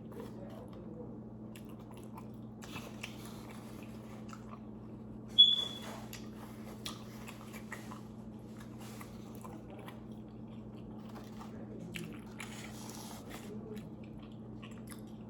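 Close-miked biting and chewing of pizza, with crunchy bites at intervals over a steady low hum. One sharp clink, the loudest sound, comes about five seconds in.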